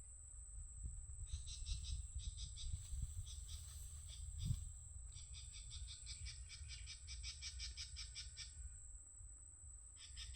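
Rapid pulsed animal calls, about seven pulses a second, in two long trains, over a steady high-pitched whine and a low rumble with one thump midway.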